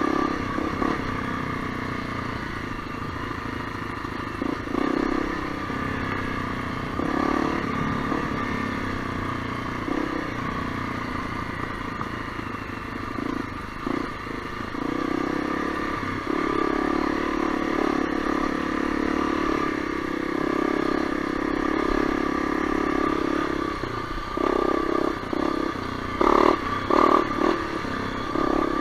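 Honda CRF250L's single-cylinder four-stroke engine running at trail speed, the throttle opening and closing every few seconds, with a few quick revs near the end; the bike clatters over rough ground.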